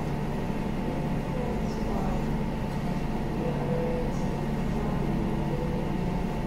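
Steady low hum of restaurant room noise, with faint distant voices now and then.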